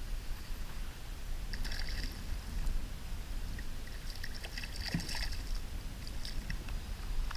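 Water sloshing against a kayak hull with a steady low rumble, and a small hooked fish splashing at the surface as it is reeled up alongside, in crackly patches partway through.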